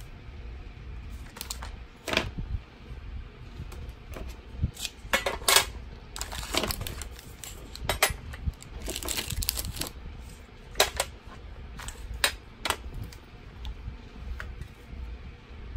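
Hands handling plastic stationery: crinkling of a plastic blister pack, and plastic pieces clicking and clattering as they are set down in a metal tray, at irregular moments.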